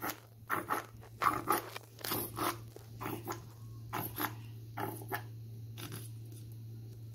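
A plastic applicator bottle being squeezed as its nozzle is drawn along tile joints to lay in runny grout. It makes irregular short crackling and scraping sounds, thinning out after about five seconds, over a steady low hum.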